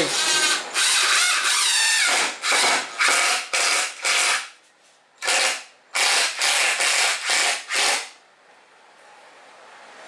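Cordless Ridgid drill-driver driving a bolt into a wooden board in a series of short trigger bursts, with a brief pause about halfway, stopping about eight seconds in.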